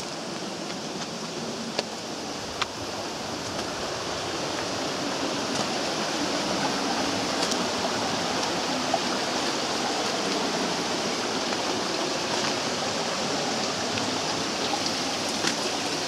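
Water of a shallow rocky mountain stream running and splashing over stones, a steady rush that grows louder over the first several seconds. Two short sharp clicks come about two and three seconds in.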